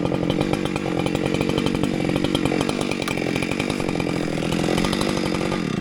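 Husqvarna 592XP two-stroke chainsaw running at a high, steady engine speed, then cutting off abruptly at the very end.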